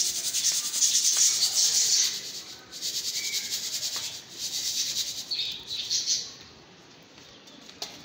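Dry pearl millet (bajra) grain rustling and hissing as it is stirred and scooped by hand in a steel basin, loudest in the first two seconds, coming back in spells and dying down about six seconds in.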